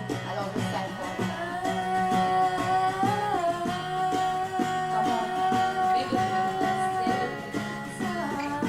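Music intro: plucked acoustic guitar with a long held vocal note, sung without words, over it.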